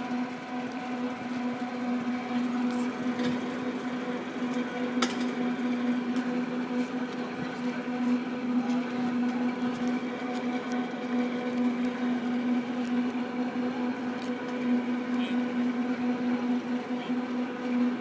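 Marina crane's hoist motor running with a steady hum as it lowers a boat in slings toward the water, with a few faint clicks.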